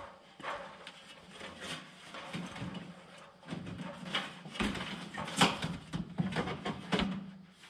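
Sheet-metal siding panel being slid up and pushed into place on the wall: irregular knocks, scrapes and rattles of the thin metal, with the sharpest knock about five and a half seconds in.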